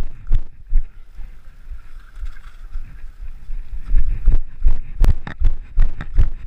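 Running footfalls on a dirt forest trail, heard as low thuds about three a second. The steps go softer about a second in and turn heavy again about four seconds in.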